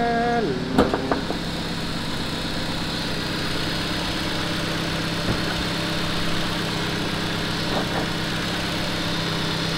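Car engine idling steadily, here the four-cylinder petrol engine of a 2010 Nissan Grand Livina, with a single sharp click a little under a second in as the bonnet is released and raised.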